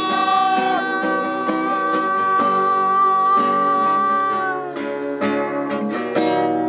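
Acoustic guitar playing between the verses of a song, with a long held sung note that ends about four and a half seconds in.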